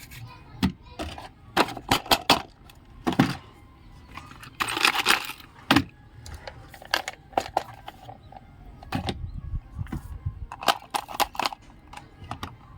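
Small plastic miniature kitchen-set toys clicking and tapping as they are handled and set down, with a brief rustle of packaging about five seconds in.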